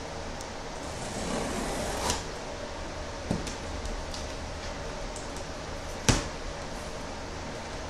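Knife slitting the packing tape on a cardboard shipping box: a scraping rustle broken by a few sharp clicks and knocks of the blade and box. The loudest knock comes about six seconds in.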